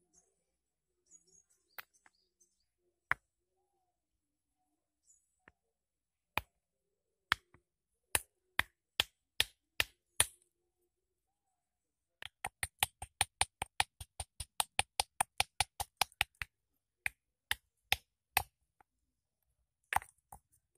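Hammerstone striking a stone axe blank held on an anvil rock, shaping the axe head: sharp stone-on-stone clicks. The strikes come singly and spaced at first, then in a fast even run of about six a second for some four seconds, then singly again.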